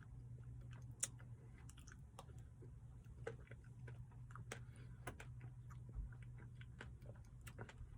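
Quiet eating sounds: a person chewing a mouthful of chocolate brownie Blizzard ice cream, with scattered small mouth clicks and smacks, over a steady low hum.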